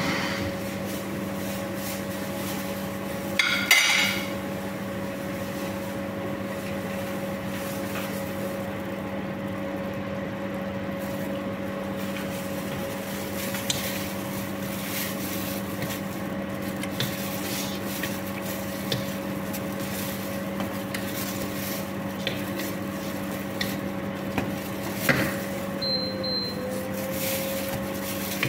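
A long wooden spoon stirring and knocking in a large cooking pot, with scattered short knocks and a louder clatter a few seconds in. A steady humming drone from a kitchen appliance runs underneath.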